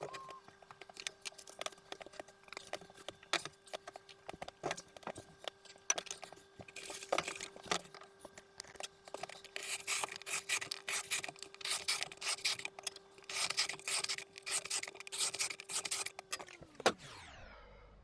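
Irregular scraping and rubbing strokes with scattered clicks, over a steady hum from a small motor. The hum winds down with falling pitch near the end.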